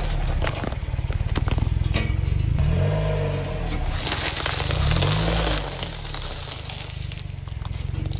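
Car engine running with its pitch rising and falling every few seconds, as steel saw-blade wheels roll over crushed plastic cups and then a pile of yellow sticks, with scattered crackling and crunching. A hiss swells about four seconds in, as the blade rolls over the sticks.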